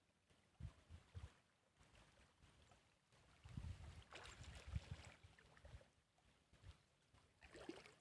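Near silence, with faint low knocks and a soft rustle of water around a small fishing boat.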